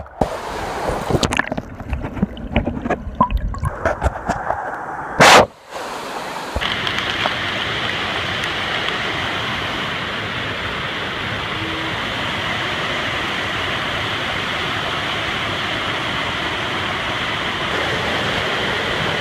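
Water splashing and sloshing close to the microphone, with one loud burst about five seconds in. After that comes the steady rush of river rapids and whitewater tumbling over rocks.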